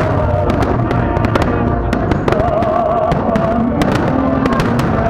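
Aerial firework shells bursting in quick succession, many sharp bangs and crackles, with music playing loudly throughout.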